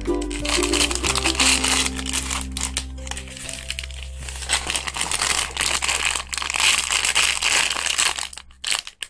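Crinkling of plastic being handled, over background music with long low held notes. Both drop out briefly near the end.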